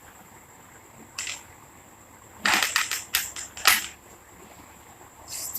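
Slime being stretched and squeezed by hand, giving sharp clicks and pops: one about a second in, a quick cluster around two and a half seconds, and two more shortly after.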